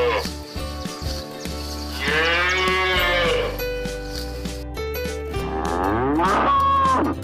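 A cow mooing: two long moos, about two seconds and about five and a half seconds in, over children's background music.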